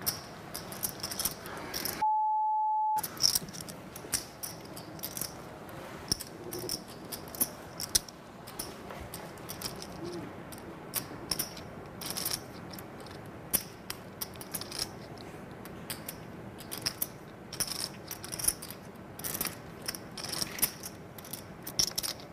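Poker chips clicking as players riffle and handle them at the table: an irregular run of sharp, short clicks. About two seconds in, a steady one-second bleep tone sounds, and all other sound drops out while it plays.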